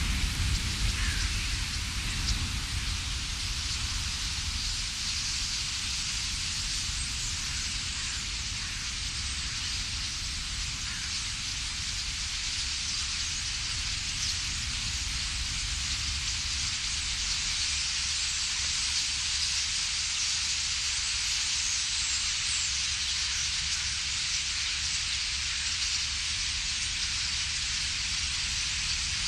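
A vast flock of common starlings in flight, their massed wingbeats and chatter making a steady rushing hiss like rain, with a low rumble underneath.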